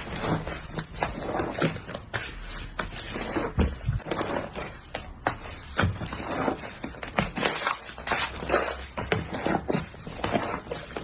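Slime being squeezed and pressed by hand: a dense, irregular run of sticky clicks and small pops, several a second.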